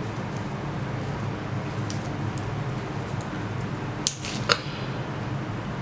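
Small plastic and metal parts of a 12 V DC submersible pump motor being handled and pried at: faint ticks, then two sharp clicks about half a second apart a little after four seconds in, over a steady low hum.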